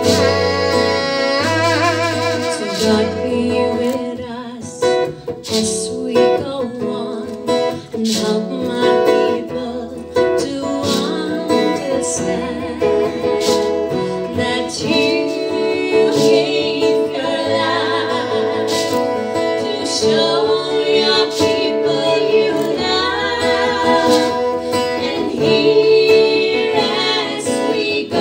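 Women singing a song together, with wavering held notes, accompanied by a strummed acoustic guitar and low steady bass notes.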